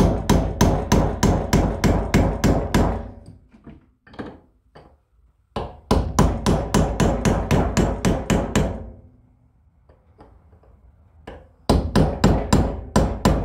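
A hammer tapping a chisel on steel in quick runs of about five ringing blows a second, three runs with short pauses between. It is staking the notches of a Sonnax thermal bypass eliminator plug in the transmission thermostat block so the plug can't back out.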